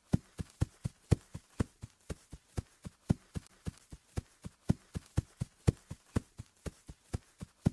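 Horse hooves galloping: a steady run of hoofbeats, about four a second.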